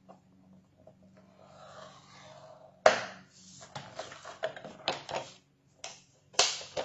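A bone folder scraping along the scoring groove of a paper trimmer, scoring kraft cardstock, followed by a run of sharp clicks and knocks as the card and the plastic trimmer board are lifted and shifted about.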